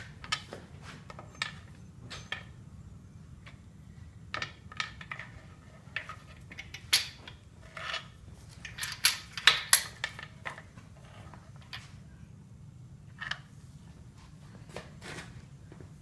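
Irregular metallic clicks and clinks of a wrench and the main bearing caps being worked on a bare HEMI V8 engine block, busiest about nine to ten seconds in.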